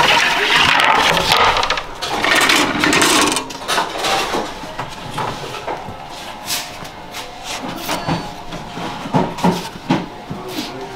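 Baker's long-handled peel scraping along the floor of a wood-fired bread oven in two long rasps during the first few seconds. Scattered light knocks and taps of wood follow as the wooden peel is handled and loaded with loaves.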